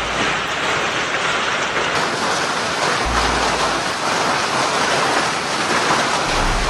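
Heavy rain pouring in a steady, dense downpour.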